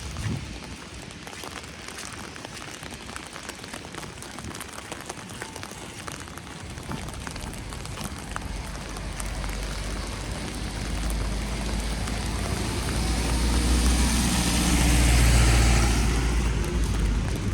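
A car approaches along the road and passes close by, its tyre and engine noise swelling to a peak a couple of seconds before the end and then fading. Behind it runs a steady hiss of wet precipitation with small scattered ticks.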